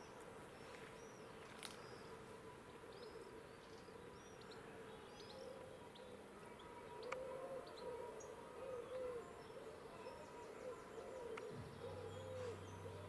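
Faint countryside birdsong: short high chirps throughout, and from about halfway a lower call repeated roughly twice a second. A low steady hum starts near the end.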